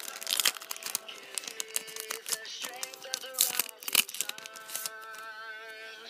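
Foil Pokémon card booster pack wrappers crinkling and tearing open by hand, a quick run of sharp crackles, over a song with singing playing in the background that holds a long wavering note near the end.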